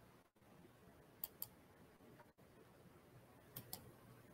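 Near silence: room tone with two pairs of faint, short clicks, one pair about a second in and another near the end.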